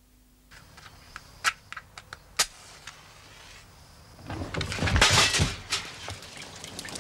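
A few sharp clicks, then about four seconds in a loud rush of flame as a stove burner lit with a match bursts into a fireball, dying back over a second or so.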